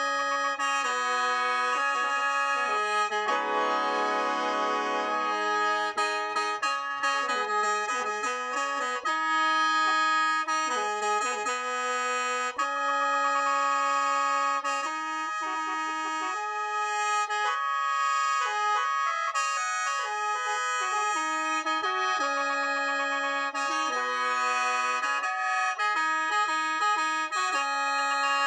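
Khaen, the Lao bamboo free-reed mouth organ, playing a continuous solo melody over steady sustained drone notes, several reeds sounding at once.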